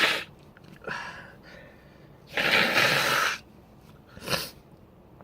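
A person sneezing uncovered: a loud, spraying sneeze about two seconds in that lasts about a second, followed near the end by a short, sharp burst of breath.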